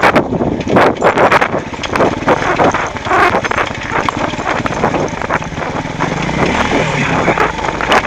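Beta Alp 200 trail motorcycle jolting down a loose rocky track: a constant clatter of knocks and rattles from the bike and tyres hitting stones, with wind on the microphone and the engine running low underneath.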